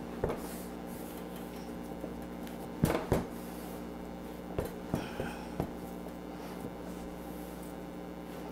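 Stiff gingerbread dough being pressed and knocked together by hand on a countertop: a few short thumps, the loudest pair about three seconds in, then several lighter ones around five seconds, over a steady low hum.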